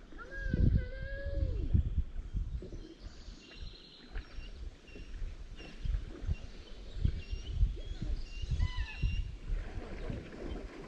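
A drawn-out whining animal call, about a second and a half long, at the start, and a shorter one near the end, over scattered low thumps.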